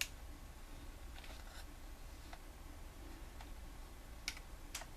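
A few faint clicks and taps of a plastic collectible being handled as its hinge is worked, with a sharper pair of clicks near the end.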